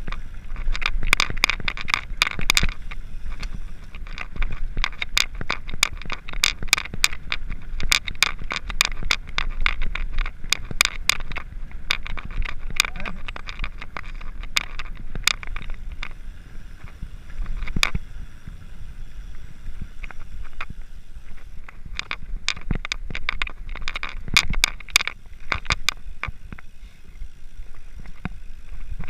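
Mountain bikes riding over a rough dirt track: many sharp clicks and rattles from the bikes over a steady low rumble, the clicks coming in denser flurries now and then.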